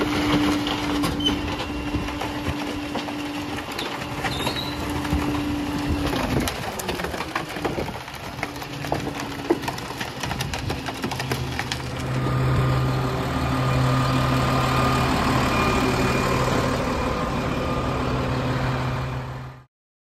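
Diesel engine and hydraulic packer of a Pak-Mor rear loader garbage truck running as the packer compacts construction and demolition debris in the hopper, with scattered cracks and clatter. The engine note changes about six seconds in, then grows louder and deeper from about twelve seconds in as the packer works.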